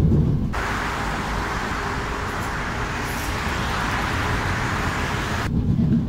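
Road traffic hiss as cars and a green HEV suburban train pass alongside a road. It is set between the low rumble of riding inside the train, which cuts off about half a second in and comes back near the end.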